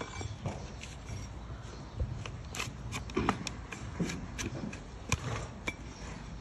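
Blade cutting and scraping a donkey's overgrown, thick hoof during trimming: irregular sharp cuts and scrapes, about a dozen, a few with a dull knock beneath.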